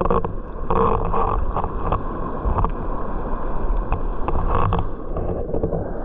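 Rushing water at a waterfall pool: a steady noisy wash with a low rumble and irregular louder surges.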